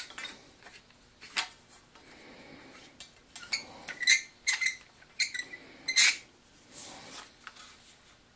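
Copper pipe clinking against the steel chuck and frame of a hand drill as they are handled: a string of sharp metallic clicks and clinks, several ringing briefly, the loudest about six seconds in.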